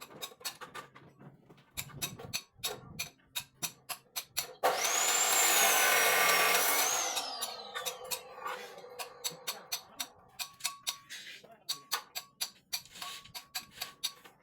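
A small high-speed power tool runs for about two and a half seconds with a high whine, then is switched off and winds down, the whine falling in pitch. Before and after it come many sharp taps and clicks.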